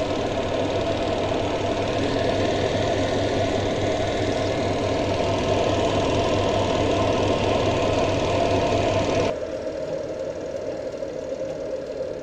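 Samsung twin-tub washing machine motor running with a steady hum, a sign that the repaired machine now has power and its tub drive works. The running stops abruptly about nine seconds in, leaving a quieter background noise.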